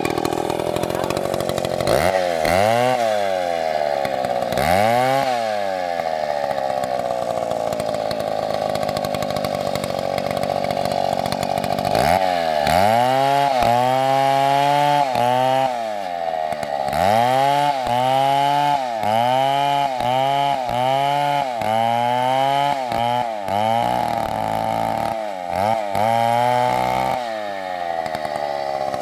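MS720 two-stroke chainsaw cutting into a big tree at full throttle, its engine note dropping as the chain bites and climbing back as it frees. The dips come twice early on, then about once a second in a steady rocking rhythm through the middle and later part.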